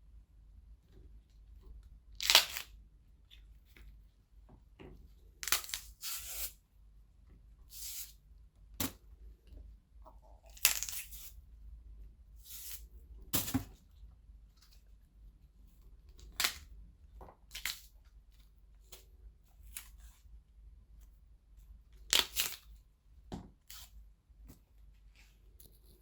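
Celery stalks being cracked and broken: a series of sharp snapping cracks at irregular intervals, a second or two apart, the loudest about two seconds in and near eleven seconds in.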